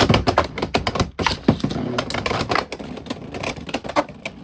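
Two Beyblade X spinning tops, Talon Ptera and Hell Chain, clashing and skittering in a plastic Hasbro stadium: a fast, irregular clatter of plastic-on-plastic clicks and knocks that drops off sharply near the end.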